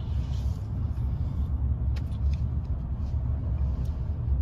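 Steady low rumble of a car heard from inside the cabin: engine and road noise.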